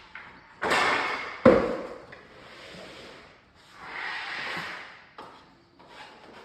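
Timber floorboards being handled and knocked into place during a direct-stick install: a sliding, scraping rush, then a sharp knock about a second and a half in, then another scraping rush around four seconds, with a few light clicks.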